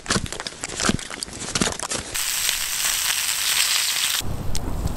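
Dry wood cracking and snapping in irregular sharp bursts. About two seconds in, a frying pan sizzles with an even hiss over a crackling campfire. Just past four seconds this gives way to a low steady rumble.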